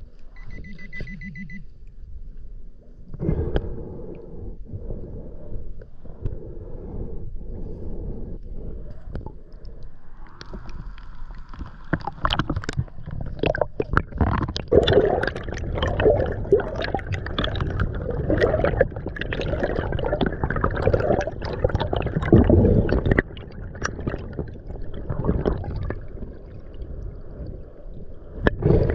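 Gurgling and splashing water with many scattered knocks and clicks, the sound of a snorkeler moving through the water. A brief pulsed beep comes about half a second in.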